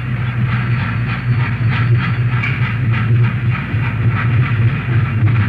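Steam train working in a railyard: a regular clatter of about two strokes a second over a steady low drone. Old tape recording with little treble.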